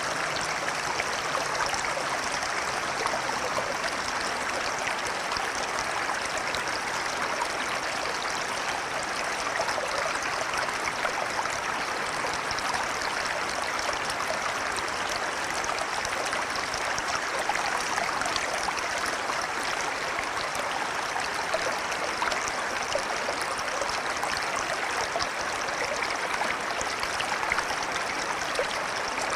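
Flowing river water rushing and babbling steadily.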